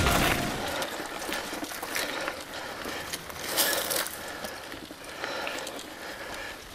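Mountain bike rolling over a rough dirt singletrack: irregular clicking and rattling from the bike over bumps, with the hiss of tyres on dirt.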